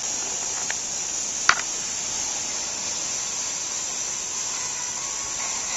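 Steady evening insect chorus, with a single sharp click about a second and a half in.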